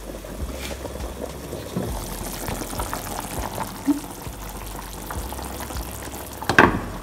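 Pot of water with dumplings boiling hard on a stove, a steady bubbling. A sharp knock near the end.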